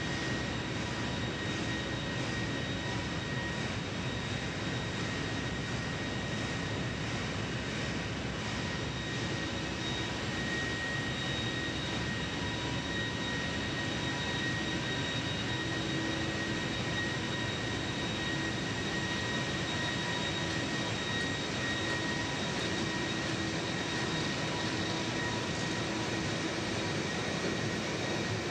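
Steady machinery noise of a large ship's engine room with the main engine and propeller shaft running, a dense even din with several constant high whining tones over it.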